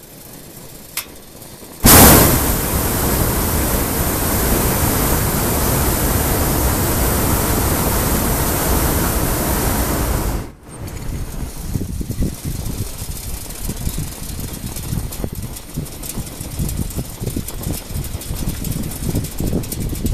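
Hot air balloon's propane burner firing in one long blast: a loud, steady rush that comes on suddenly about two seconds in and cuts off after about eight seconds. After it a softer, uneven noise remains.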